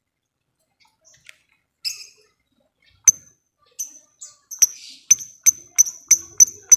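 Lovebird calling in the rapid 'ngetik' ticking style. After one chirp about two seconds in, sharp high clicking chirps start about three seconds in and come faster and faster, reaching about three a second by the end.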